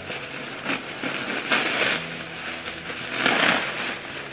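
Packaging being unwrapped by hand, crinkling and rustling, with two louder crunching bursts, about a second and a half in and again about three seconds in.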